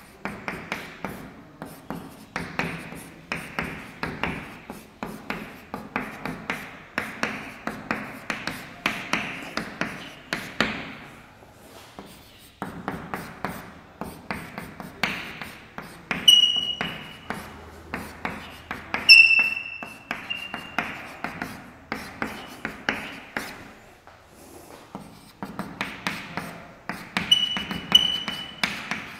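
Chalk writing on a chalkboard: quick taps and scratches as numbers, commas and brackets are written, with short high pitched chalk squeaks several times in the second half.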